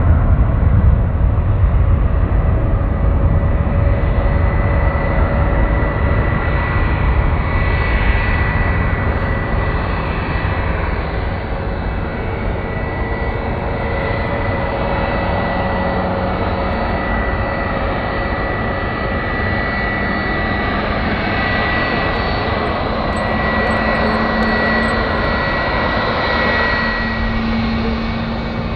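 Starlux Airbus A330neo's Rolls-Royce Trent 7000 jet engines running. A heavy low rumble is loudest at first and eases gradually under steady whining tones.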